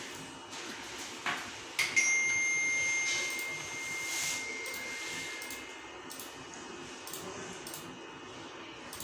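Computer mouse clicking while working the recorder's on-screen menu and keyboard. The loudest sound is a single bell-like ding about two seconds in that rings on and fades over a few seconds.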